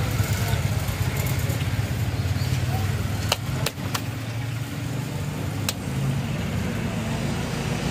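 Street traffic with a motor vehicle's engine running close by: a steady low hum. A few sharp clicks sound in the middle, three close together and one more about two seconds later.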